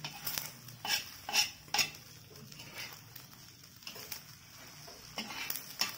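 Metal spatula scraping and tapping on a hot flat griddle while folding a soft egg omelette, over a faint sizzle. A handful of short, sharp scrapes come in the first two seconds, then a quieter stretch, then a quick cluster of scrapes near the end.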